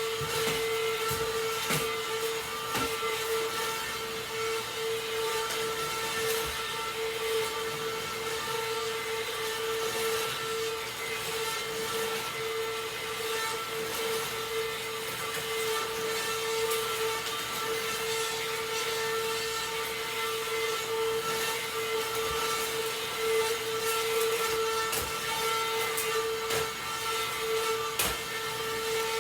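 Vacuum cleaner running steadily, a constant whine over a rushing hiss, with small clicks and knocks now and then as it moves over the floor.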